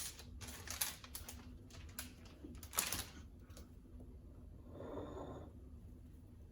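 Light knocks and taps of drink containers being set down and handled on a table, several in the first three seconds. A soft rustle follows about five seconds in.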